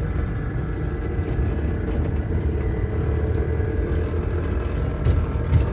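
Ride-on miniature electric train running along its track, heard from inside its cab: a steady low rumble of wheels and motor.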